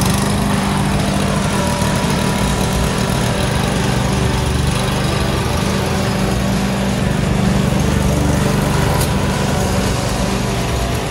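Masport walk-behind petrol lawn mower running steadily at constant speed as it is pushed across grass, cutting.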